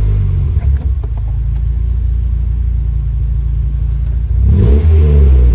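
Honda B18C1 1.8-litre four-cylinder engine idling evenly just after starting. A short rev comes about four and a half seconds in, then it settles back to idle. It is running smoothly on a replacement distributor fitted to cure a misfire and rough idle.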